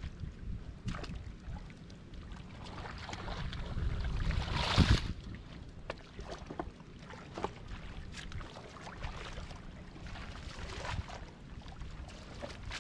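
Hands splashing and sloshing through shallow muddy water, with a louder surge of splashing about five seconds in.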